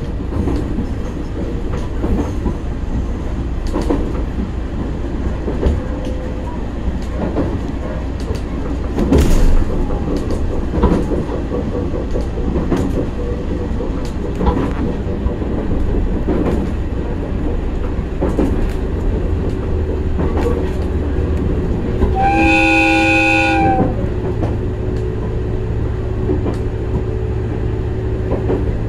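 Resort Shirakami rapid train running along the track with a steady low rumble and the wheels clicking over rail joints; about three quarters of the way through, the train's horn sounds once for about a second and a half.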